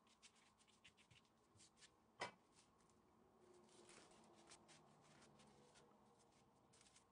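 Pastry brush stroking and dabbing melted butter onto a sheet of phyllo dough (yufka): a faint, quick run of soft brushing strokes, with one sharper tap about two seconds in.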